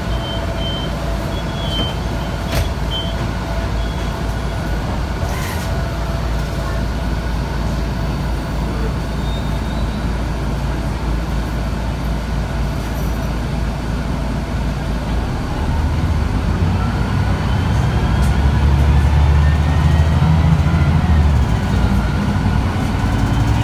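Cabin noise of a Mercedes-Benz O405G articulated bus: its diesel engine and drivetrain run steadily, then get louder about two-thirds of the way through, with a whine rising in pitch as the bus accelerates.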